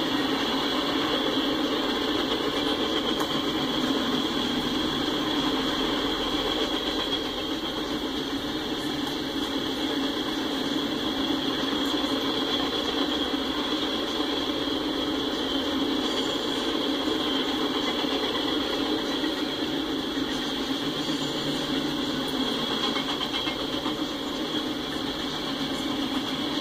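Freight train's tank cars and autoracks rolling past, a steady rumble of steel wheels on the rails with no break.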